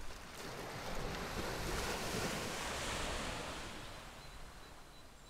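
Rushing surf, one swell of sea wash that builds over the first second, holds, and then fades away toward the end.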